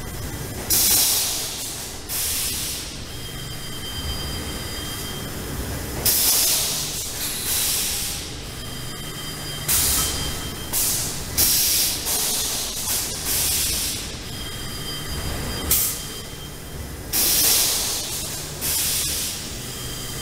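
Yarn-bobbin bagging machine running with a steady low mechanical hum. About a dozen short, loud hisses of compressed air are released at uneven intervals of one to four seconds as the machine cycles.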